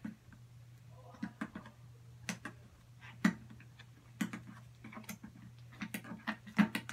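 Irregular light clicks and taps, busier in the second half, of a utensil knocking against a small clear cup as sticky slime is stirred with borax activator.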